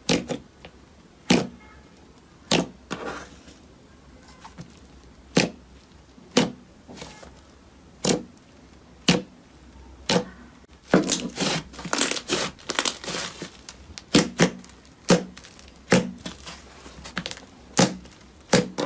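Slime being pressed and squeezed by hand, giving sharp pops and crackles roughly once a second, with a quick run of them about midway.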